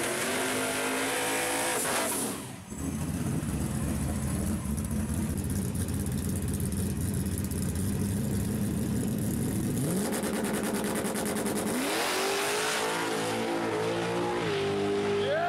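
Fox-body Mustang drag car's engine held at high revs during a burnout, with tire hiss. A low, steady idle rumble follows while it stages. About ten seconds in it launches: the revs climb sharply, then climb again in steps as it shifts up through the gears.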